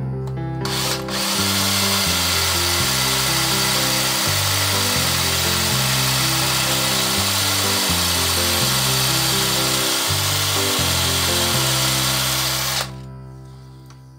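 Hand-held electric drill running steadily, boring a long needle lengthwise through a wooden lure body; it starts about a second in and stops near the end. Background music with a stepping bass line plays under it.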